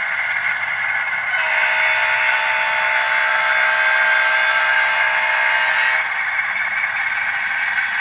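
Model diesel train with tank cars rolling past on the track, a steady rushing clatter of wheels and motor. From about a second and a half in to about six seconds, the locomotive's sound-system horn sounds one long, steady chord.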